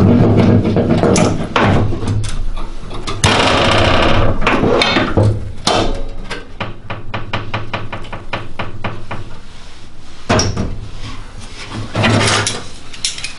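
Hand metal snips cutting and working an old sheet-steel body panel: sharp metallic snips, knocks and scraping, with a rasping stretch a few seconds in and a quick even run of clicks in the middle.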